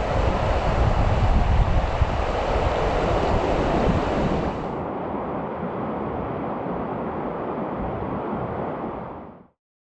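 Steady rush of moving river water with wind buffeting the microphone. The rush turns quieter and duller about five seconds in, then fades out near the end.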